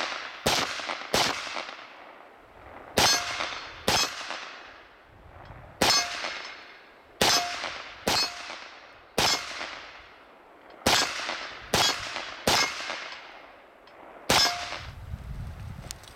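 Palmetto State Armory 20-inch A2-style AR-15 rifle firing .223 Remington: about a dozen single shots at an unhurried, uneven pace, one every second or so, each trailing off in an echo. Several of the shots are followed by a brief ringing tone.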